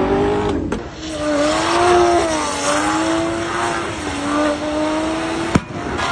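A Mercedes car's engine held at high revs during a smoky burnout, its note wavering slightly over the steady hiss and squeal of spinning tyres. It opens with a different car's engine rising in pitch, cut off under a second in, and a sharp crack comes near the end as the engine note drops away.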